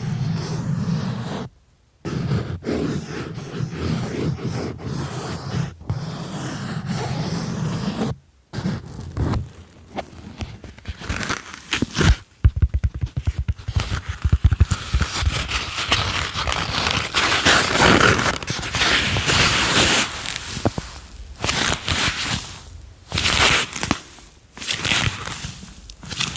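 An object scratched, rubbed and tapped right against the microphone, with many quick taps and scrapes. It starts dull and low, and about halfway through it turns to a brighter, hissier scratching that comes in short bursts near the end.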